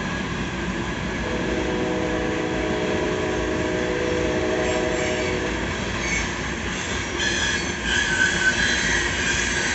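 Loaded coal train's hopper cars rolling past, steady wheel-on-rail noise with squealing wheels: a held cluster of tones for about four seconds, then higher squeals near the end.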